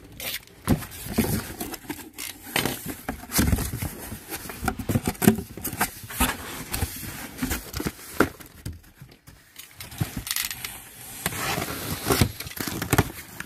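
Cardboard being handled: flaps rustling and scraping, and boxes knocking and sliding as smaller cartons are lifted out of a large shipping box. Near the end a box cutter slits packing tape.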